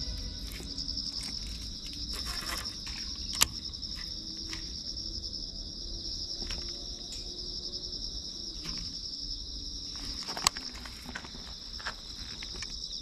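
Insects trilling in a steady, high-pitched chorus, with a couple of sharp clicks about a third of the way in and again near the end.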